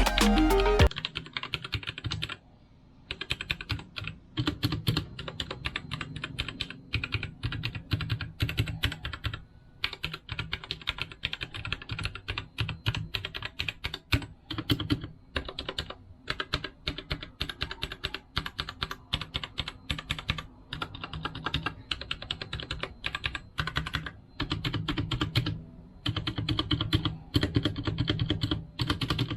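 Typing on a Royal Kludge RKG68 mechanical keyboard fitted with red linear switches: a fast, irregular run of key clicks with a few short pauses.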